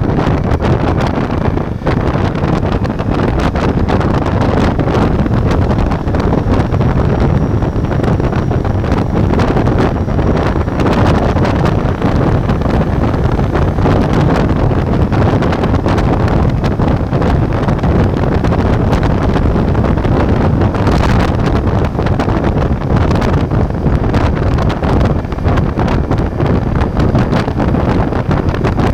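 Ducati Multistrada V4 on the move: steady wind rushing over the action-camera microphone, with the bike's V4 engine running underneath.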